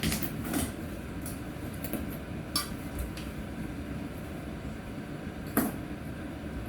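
Small hard toys being handled and set down on a surface: a few scattered clicks and knocks, the loudest a little after five seconds in.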